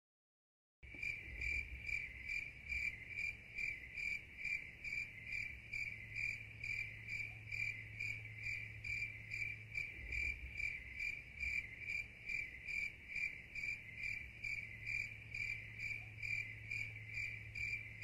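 Rhythmic high-pitched chirping, about three chirps a second at a steady pace, starting just under a second in over a faint low hum.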